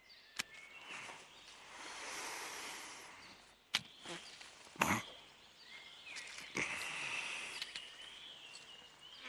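A horse snuffling and blowing air through its nostrils close by, in two long breathy exhalations, with a few soft clicks and rustles in between.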